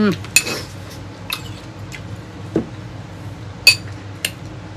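Cutlery clinking against a plate and a ceramic bowl during a meal: a spoon and fork making a handful of scattered sharp clicks, the loudest about three and a half seconds in.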